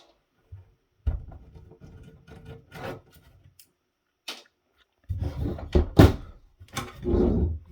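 Handling noise as a circuit board is worked at inside a rack-mount audio mixer: rubbing and scraping with knocks and clicks in two bouts, the second louder, with a sharp click near its middle.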